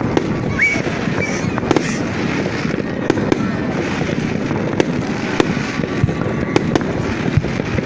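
Fireworks display going off continuously: a dense rumble and crackle of many overlapping bursts with sharp pops scattered throughout, and a brief rising whistle about half a second in.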